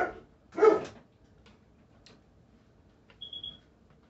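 A dog barking twice in quick succession at the start, two loud, short barks well under a second apart. About three seconds in comes a brief high-pitched squeak.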